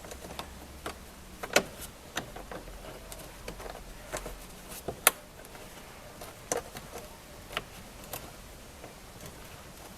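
Scattered clicks and knocks of a 10 mm bolt and tool being fitted against a plastic wheel-well shield, with two sharper clicks about a second and a half and five seconds in.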